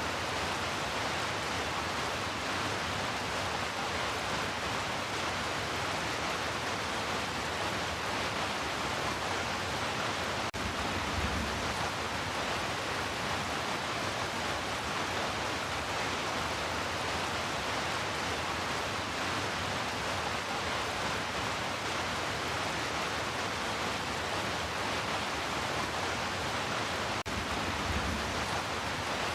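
Heavy rain falling as a steady, even hiss, with a brief low rumble about a third of the way in and again near the end.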